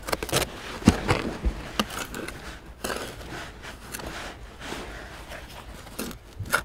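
Hand trowel scraping and digging into loose dirt, with irregular scrapes, crumbling soil and short knocks; the sharpest knocks come about a second in and near the end.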